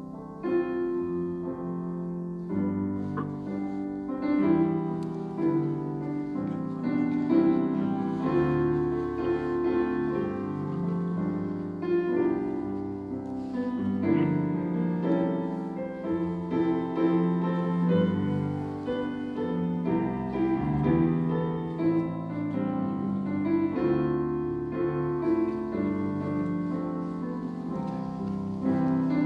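Solo piano playing an instrumental piece, a steady flow of notes and chords with no singing.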